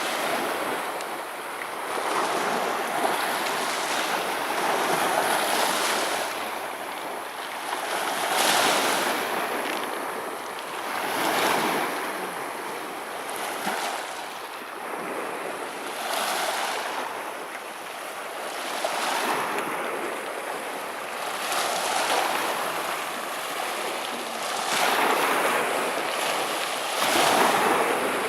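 Sea waves breaking on the shore, the surf swelling and falling back every two to three seconds.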